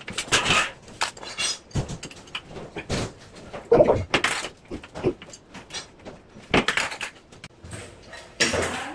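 Irregular knocks and clinks of ceramic bathroom wall tiles being struck and worked off during demolition; the tiles have come away from the wall behind them.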